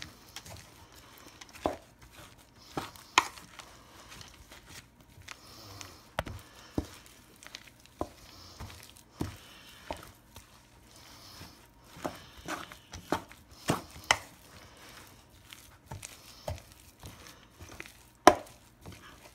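Wooden spoon stirring a thick cream-cheese, shredded chicken and cheddar mixture in a metal mixing bowl: irregular knocks and scrapes of the spoon against the bowl, with the loudest knocks a little after three seconds, around fourteen seconds and near the end. The cream cheese is not soft enough, so the mixture is stiff and hard to stir.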